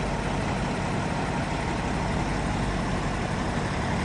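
Steady drone of a diesel engine running, with an even low hum: the refrigeration (reefer) unit on a neighbouring truck's trailer.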